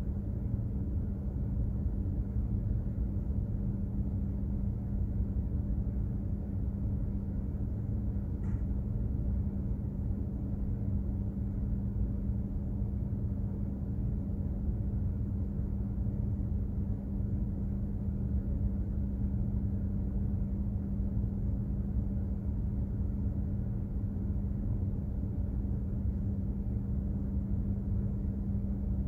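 Steady low rumble of a container ship under way, with a constant droning hum from its engine and machinery.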